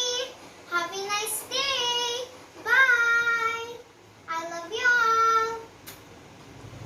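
A child singing a short tune in about four phrases, each ending on a long held note, with brief pauses between them.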